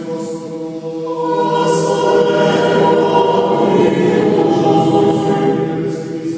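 A choir sings a Byzantine-rite liturgical chant, several voices holding long notes together. The singing swells louder about two seconds in.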